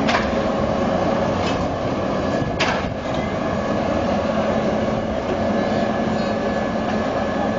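Railway turntable turning with a steam locomotive and a diesel shunter on its bridge: a steady mechanical hum with three sharp clacks in the first three seconds.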